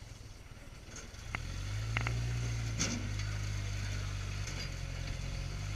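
Engine of a Suzuki Samurai rock-crawler buggy picking up about a second and a half in and then pulling steadily under load on the climb, with a few sharp knocks around two to three seconds in.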